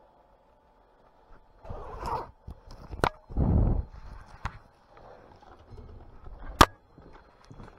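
Firefighter's kit being handled at metal station lockers: heavy clothing rustles twice, with sharp clacks in between. The loudest clack comes about two-thirds of the way through.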